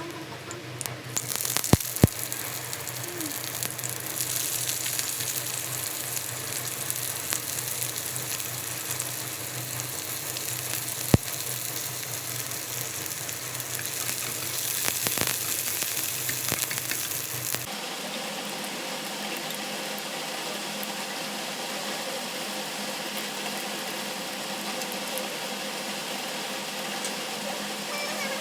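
Food frying in hot oil in a wok, a steady sizzle, with a few sharp clicks of a utensil against the pan about two seconds in and again about eleven seconds in. The sizzle changes character suddenly about 18 seconds in, losing its low hum.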